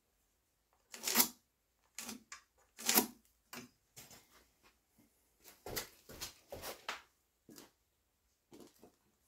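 A series of short scraping and rubbing noises, some with a dull knock, from materials and tools being handled on a concrete base. The two loudest come about one and three seconds in, followed by several smaller ones.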